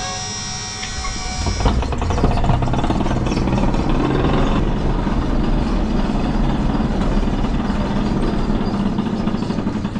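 Electric pallet jack's motor whining with a steady tone. From about two seconds in, a louder steady rumble follows as the loaded pallet is moved across the trailer's floor.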